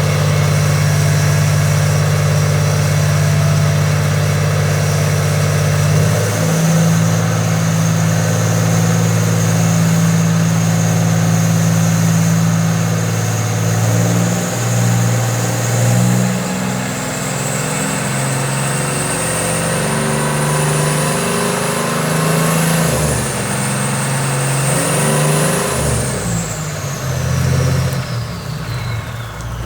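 Twin Volvo Penta marine diesel engines running on a test run after repairs, with a high turbocharger whistle over the engine note. The whistle climbs slowly as the engines are brought up, then falls away steeply near the end as they come back down.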